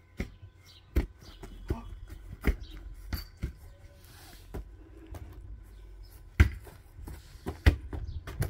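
A football being kicked and thudding on a grass lawn: about ten irregular dull knocks, the two loudest about six and a half and seven and a half seconds in, over a low wind rumble on the microphone.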